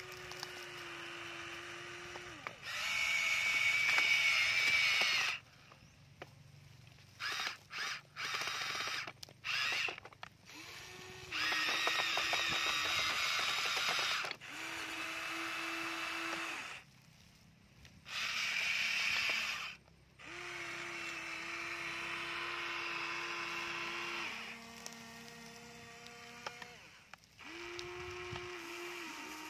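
Huina remote-control excavator's electric motors and gearboxes whining in repeated bursts of a few seconds each, with several very short bursts in between, as it drives its tracks and boom to climb onto the truck's flatbed. A steady low hum sits in the pauses between bursts.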